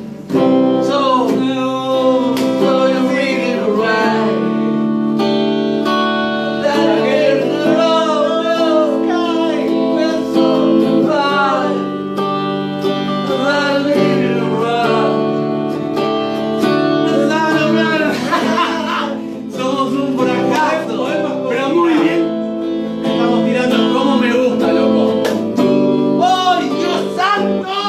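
Electric guitar playing a lead melody with gliding, wavering notes over sustained low notes, without a break.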